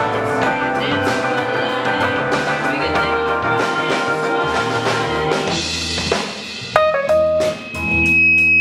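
A live rock band plays with electric guitars and a drum kit. About six seconds in, the playing thins out from the full band to a few held notes with gaps between them.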